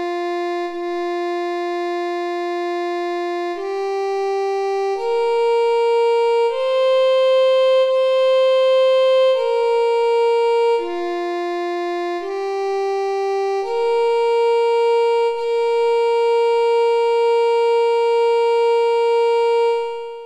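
Tenrikyo's 2 o'clock siren sounding the hour as a slow melody of long, steady held notes. The last note is held for about seven seconds before it fades out.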